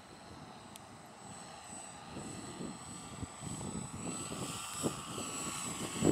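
Radio-controlled B-26 Marauder model's twin propellers droning on landing approach, growing steadily louder as the plane comes in low toward the listener.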